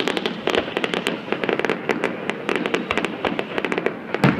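Many fireworks and firecrackers going off at once: a dense, rapid crackle of overlapping pops and bangs, with one louder bang near the end.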